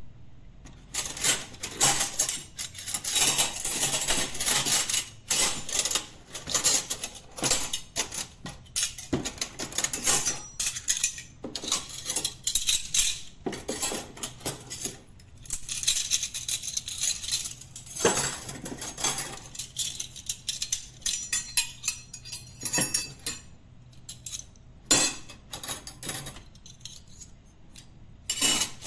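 Metal cutlery (forks, knives and spoons) clinking and clattering against each other as it is sorted into a drawer or tray, in quick irregular bursts that thin out in the second half, with a few louder single clanks.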